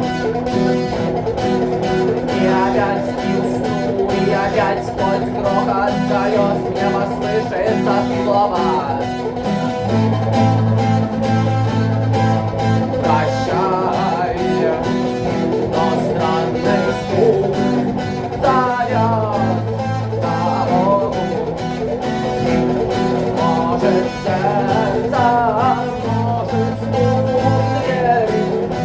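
Guitar playing an instrumental passage: a melody of wavering, bending notes over sustained low notes underneath.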